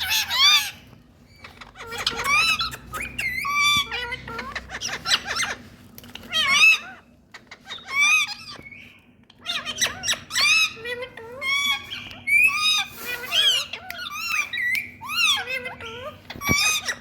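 Rose-ringed parakeets (Indian ringnecks) calling: short, high-pitched squawks and chirps with sharply bending pitch, in quick clusters with brief pauses between.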